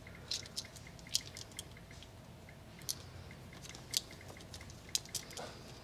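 Faint handling sounds of plastic split loom tubing as wires are worked into it: scattered light clicks and crinkles.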